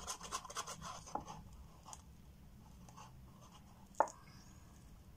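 A stick scraping thick, nearly set epoxy resin around a paper cup: a quick run of scratchy strokes in the first second or so, then one sharp knock about four seconds in.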